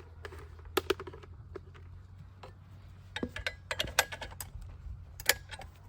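Scattered sharp clicks and light metallic knocks of equipment being handled, coming in quick clusters in the second half, over a faint steady low hum.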